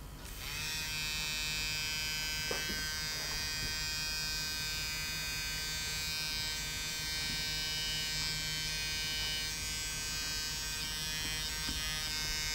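Motor of a laptop's 3.5-inch floppy drive spinning up with a rising whine about half a second in, then running with a steady high-pitched electric buzz. Its drive belt is slack, so the disc barely turns and slips.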